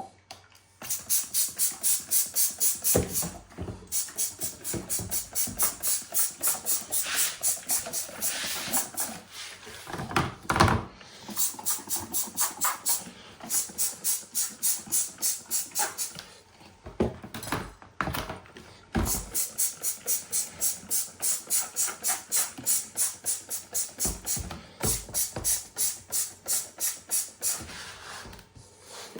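Hand trigger sprayer squirting detergent onto a Teletype typing unit in quick runs of about four squirts a second, with short pauses between runs. A louder knock comes about ten seconds in.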